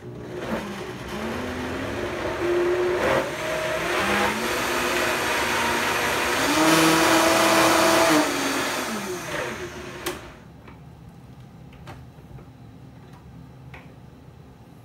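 High-powered countertop blender running on a thick pumpkin-seed sauce, its motor whine stepping up in pitch as the speed is turned up. It is loudest about seven seconds in, then winds down and stops about ten seconds in.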